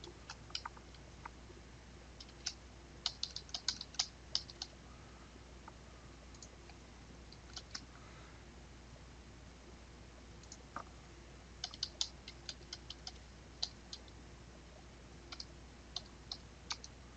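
Faint computer keyboard typing: short bursts of quick keystrokes with pauses between them, as text is entered into form fields.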